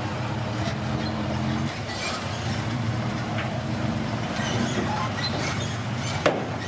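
Komatsu D21P bulldozer's diesel engine running steadily, with scattered metallic clanks and one sharper knock near the end.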